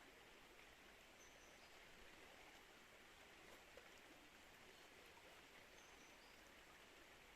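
Faint, steady rush of flowing river water, with a couple of faint high chirps.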